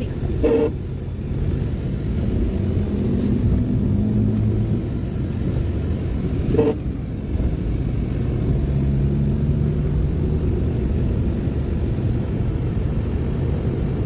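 Car on the move: a steady low engine and road rumble, the engine note slowly rising and falling. Two short louder sounds break in, just after the start and about halfway through.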